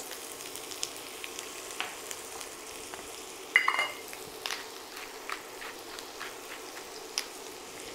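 Chopped red onion and garlic sizzling steadily in hot olive oil in a wok, with scattered small crackles. A brief ringing knock about three and a half seconds in.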